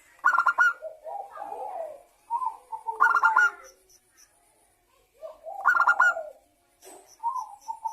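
Zebra dove (local perkutut) cooing its song: a burst of quick stuttering notes three times, about every two and a half to three seconds, with softer rolling coos in between.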